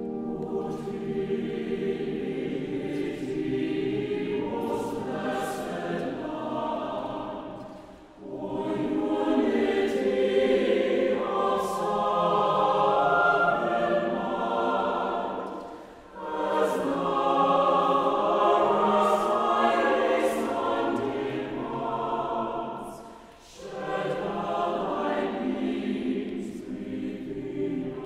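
Mixed choir singing a sacred choral piece in sustained phrases, breaking briefly between phrases about 8, 16 and 23 seconds in.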